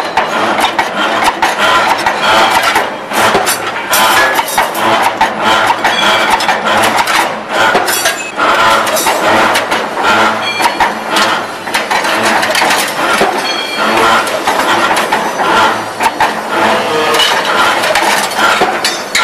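Automatic steel-rod straightening and bending machine running, a steady mechanical noise packed with rapid irregular metallic clicks and clanks as the rod is fed through the rollers and bending head.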